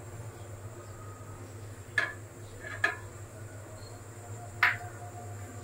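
Three separate clinks of a kitchen utensil against cookware, over a steady low hum.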